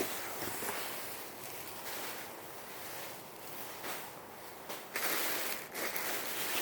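Dresses in plastic bags being handled, the plastic rustling and crinkling in uneven swells that grow louder about five seconds in.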